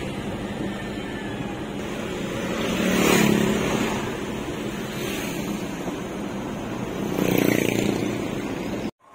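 Suzuki DA63T mini-truck on the move, heard from inside the cab: a steady engine hum under road and wind noise. It swells louder twice, about three and seven and a half seconds in, then cuts off abruptly near the end.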